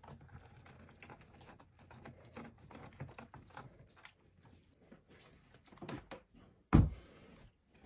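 Gloved hands handling a plastic UPS battery cartridge, with many small clicks and rustles of the casing, and one loud thump near the end.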